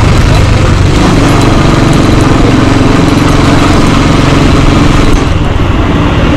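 Motorcycle engine running steadily while riding, heard loud and close from the handlebars.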